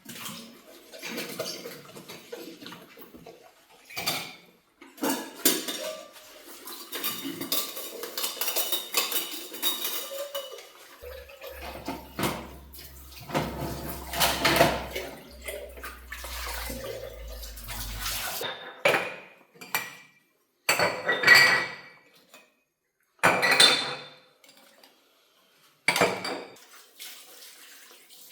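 Dishes and cutlery clinking and clattering as they are handled, with a low hum for several seconds in the middle and a few separate sharp clatters near the end.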